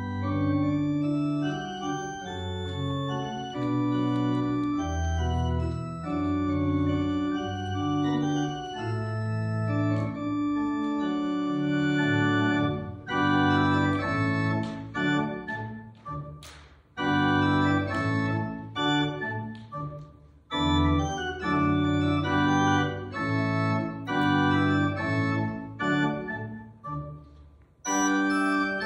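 Organ playing a slow solo piece in long held chords, with short breaks between phrases about halfway through and near the end.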